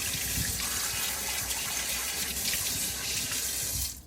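Kitchen tap running into a sink as a coffee machine part is rinsed out under the stream; the water shuts off just before the end.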